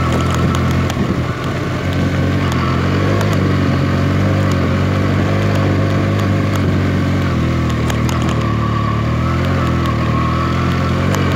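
Benelli TNT 300's parallel-twin engine running at a steady, even pitch while riding, with scattered clicks over it.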